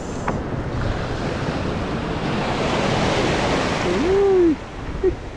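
Surf washing in over a shallow rocky reef, a rush of foaming water that swells to its loudest about three seconds in and then eases. A short voiced sound comes near the end.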